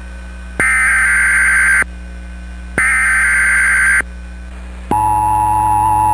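Emergency Alert System SAME header: two buzzy bursts of digital data tones, each a little over a second long with a second's gap between them. About five seconds in, the steady two-tone EAS attention signal starts.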